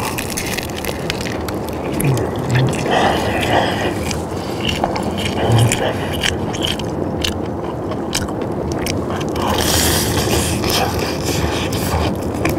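Crispy battered fried chicken being bitten and chewed: a run of sharp crackling crunches from the crust, coming thickest near the end.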